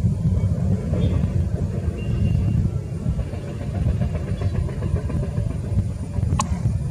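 Distant low rumble of a Boeing 737's jet engines on final approach, steady and fluctuating, with a single sharp click near the end.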